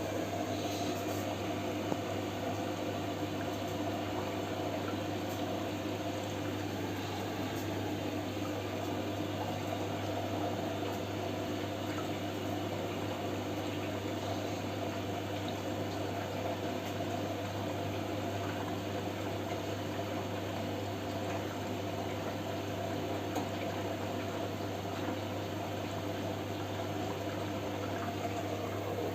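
Siemens washing machine taking in water for its final rinse: a steady rush of water flowing into the drum, with a constant hum underneath.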